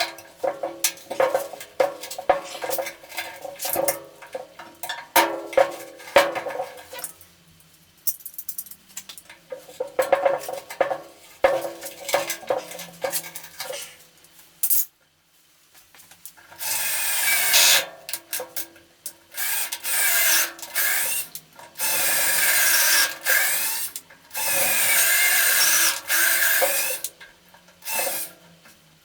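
Hand tools knocking and scraping on a wheelbarrow's handle. From about halfway through, a power tool runs in several bursts of a few seconds each.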